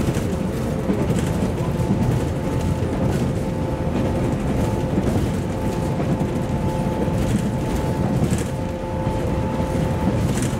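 Running sound inside the motor car of a JR Series 113 electric train at speed: the MT54 traction motors give a steady whine at two pitches over the heavy rumble and rattling of the car on the track.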